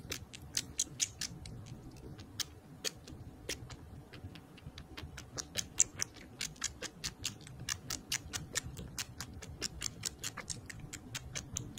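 Kitten suckling at a small milk feeding bottle, making quick clicking smacks about three to four times a second.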